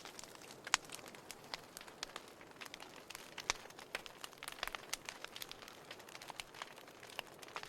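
Fireplace fire crackling: irregular snaps and pops, a few sharper ones standing out, over a soft steady hiss.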